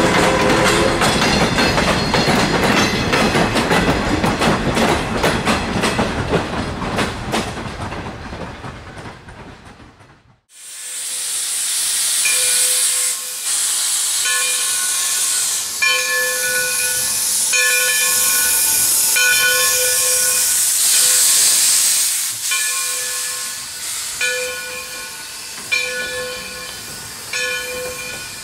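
Railroad cars clattering over the rail joints as the train rolls away, fading out. Then a steam locomotive, a 2-8-0 Consolidation, hissing steam, with a bell ringing about once a second as it and the cars move slowly.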